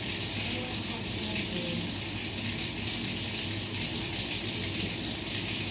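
A steady hiss at an even level, with a faint low hum under it.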